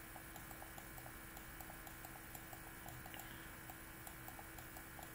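Faint, quick, even ticking, about four ticks a second, over a low steady hum.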